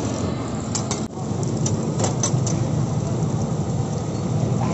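A steel spatula clicking and scraping on a flat griddle, a string of sharp clicks in the first couple of seconds, over a steady background din and hiss.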